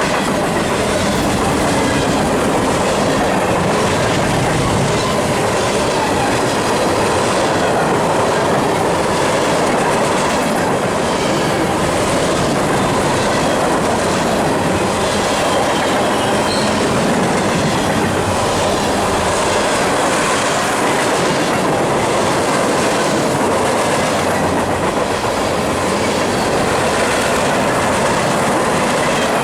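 Freight cars of a long manifest train rolling past: steel wheels running on the rail with a steady rumble and a repeating clickety-clack.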